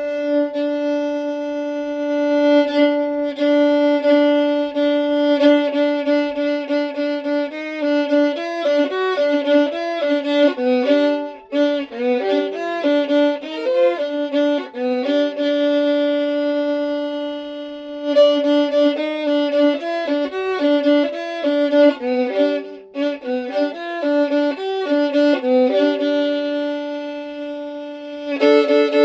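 Solo violin playing an improvised melody against a steady drone note, with runs of short notes and brief pauses about 11 and 23 seconds in.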